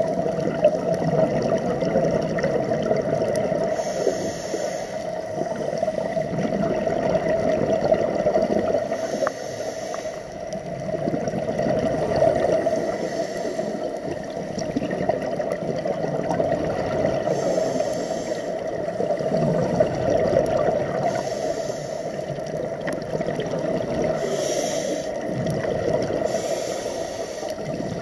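A scuba diver breathing through a regulator underwater: a short hiss of inhalation about every three to four seconds over a constant muffled rushing of bubbles and water.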